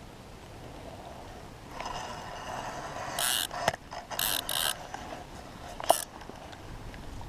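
Spinning fishing reel being cranked, its gears whirring for about three seconds, with a few short bursts of noise and sharp clicks in between.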